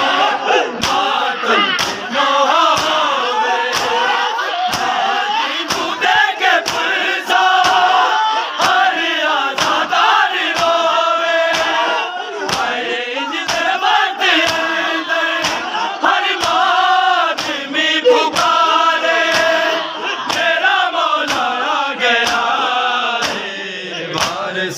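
A large crowd of men chanting a lament in unison while beating their chests with open hands (matam), the slaps landing in a steady rhythm of roughly two a second.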